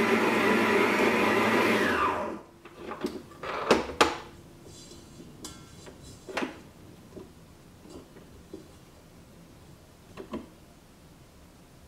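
Electric stand mixer kneading bread dough with a dough hook in a stainless steel bowl, its motor winding down and stopping about two seconds in. A few sharp clicks and knocks follow, then quiet handling of the dough in the bowl.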